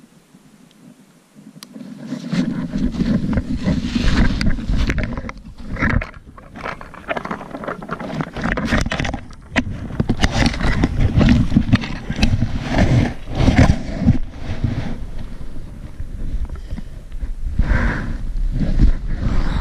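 Deep snow crunching and scraping close against the camera as a hiker pushes through it, loud and irregular from about two seconds in, with low rumbling rubbing on the microphone.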